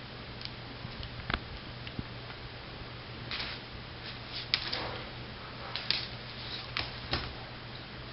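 Iguana biting and chewing a piece of banana on a wooden table: irregular sharp clicks and short bursts of noise, about half a dozen, over a steady low hum.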